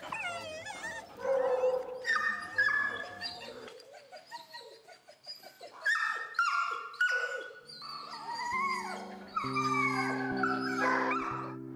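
Several kennelled dogs barking and whining over one another, in short and drawn-out calls that rise and fall in pitch, thinning out for a moment near the middle. Sustained music chords come in about two-thirds of the way through.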